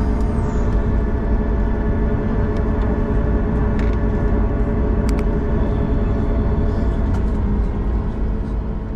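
Cabin noise of a Boeing 737 MAX 8200 taxiing after landing: a steady low rumble from its CFM LEAP-1B engines at idle and the airframe rolling, with a faint steady hum and a few faint clicks.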